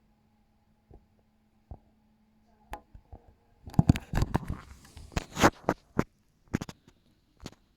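Wind gusts buffeting the microphone: scattered knocks and crackles, then a burst of low rumbling and crackling from about four to six seconds in, and a few more knocks near the end.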